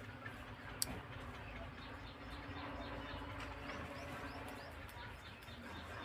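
Small birds chirping: many short, quick, high chirps in a steady run. A single sharp click a little under a second in.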